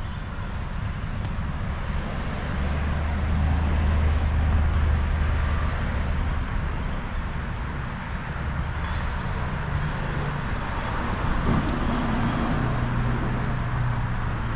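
Road vehicle noise: a steady hiss of tyres on the road over a low engine hum. The hum swells for a few seconds starting about two and a half seconds in, and again near the end.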